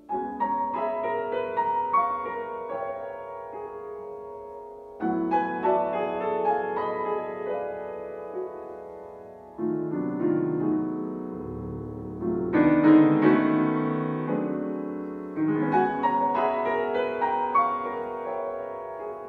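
Solo grand piano playing: about five phrases of many notes, each starting with a sudden loud attack and ringing away as it fades.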